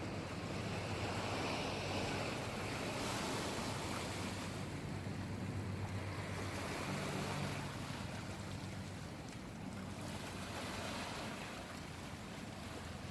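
Seto Inland Sea waves washing, the sound swelling and easing, with a low steady hum underneath.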